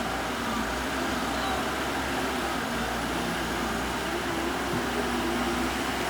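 Wheel loader's diesel engine running steadily, with a wavering mid-pitched whine over a low hum.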